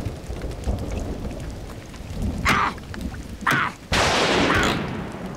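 Steady rain with a low rumble, two short knocks about two and a half and three and a half seconds in, then a loud crack of thunder about four seconds in that rumbles on for about a second.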